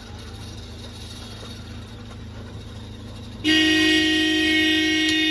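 A low steady hum, then a loud, steady horn-like tone that starts abruptly about three and a half seconds in and holds at one pitch.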